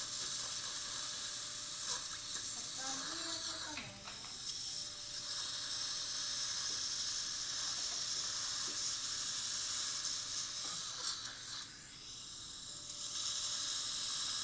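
Steady hiss of a metal surgical suction tip drawing irrigation water and blood from a tooth extraction socket while an implant drill turns in it, with a faint steady motor tone underneath.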